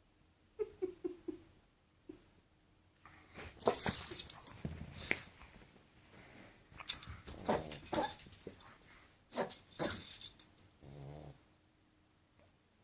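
Pug puppy sneezing in a spell of sudden sneezes and snorts, coming in three bouts a few seconds apart, after a few short squeaks near the start.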